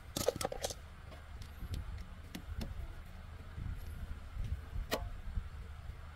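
Sharp clicks and light knocks of hand tools being handled, over a low steady hum. The clicks come as a quick cluster in the first second, scattered singles after it, and one more about five seconds in.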